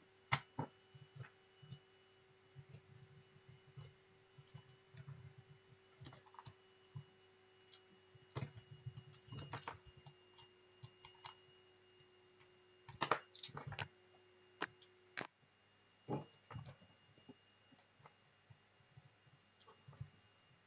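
Faint, irregular clicks, taps and knocks of small plastic and metal parts and hand tools being handled on a tabletop as jumper wires are fitted to a robot car's boards. A faint steady tone runs underneath and cuts off about fifteen seconds in.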